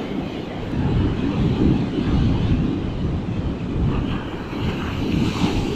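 Strong wind buffeting the microphone in a heavy, gusting rumble, with breaking surf hissing underneath.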